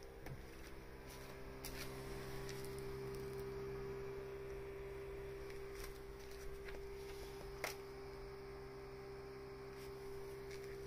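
Steady low electrical hum with a few faint clicks, one sharper click about three-quarters of the way through.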